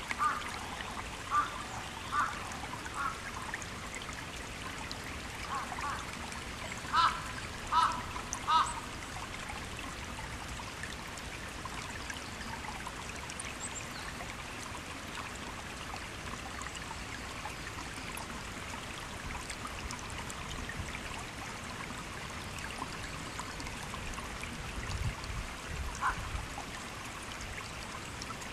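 A shallow stream trickling steadily, with a duck quacking in short runs of calls during the first nine seconds or so and once more near the end.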